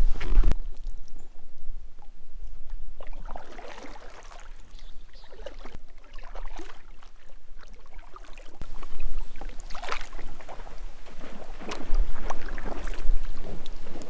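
Kayak paddle strokes dipping and splashing in the river, one every two or three seconds, after a louder splash and rustle at the start as the kayak is pushed off the grassy bank.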